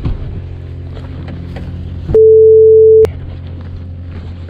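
A steady low hum underneath, interrupted about two seconds in by a loud, pure censor bleep lasting just under a second that blanks out all other sound, typical of a swear word being beeped out.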